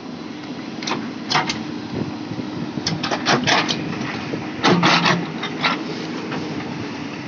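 JCB backhoe loader's diesel engine running steadily, with clusters of short, sharp noises over it about a second in, around three seconds in, and loudest near five seconds in.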